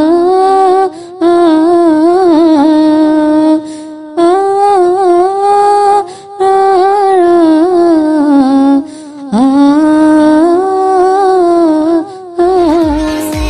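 A single unaccompanied voice chanting a Sinhala folk verse (jana kavi) in long, drawn-out melodic lines, with short breaths between the phrases. Near the end an electronic dance-music beat comes in.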